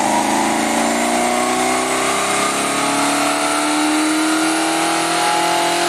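A Rover SD1's 4.3-litre Rover V8 is at full throttle on a rolling road, its revs climbing slowly and steadily through a power run towards 5,000 rpm. The fuel pressure has been raised to richen a lean mixture.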